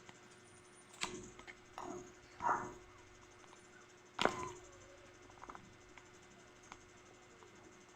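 Eating sounds over a meal of chicken adobo: a few short, sharp clicks and crunches at irregular moments, the loudest just after four seconds in, then only faint ticks.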